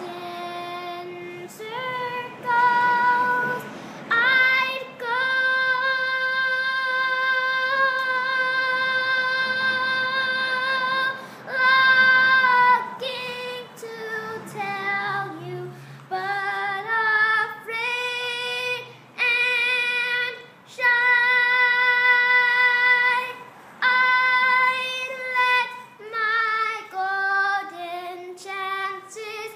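A young girl singing solo with no accompaniment. She holds one long steady note for several seconds, then breaks into quick runs of notes between short breaths.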